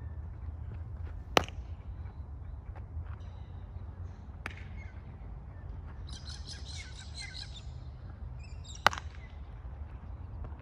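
Two sharp pops of a baseball smacking into a leather glove at first base, one about a second in and one near the end, with a fainter click between them. Birds chirp briefly in the middle, over a low steady rumble.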